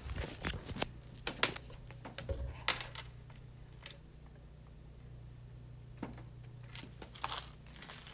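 Scattered light clicks and taps of someone handling things, thickest in the first three seconds and again near the end, over a low steady hum.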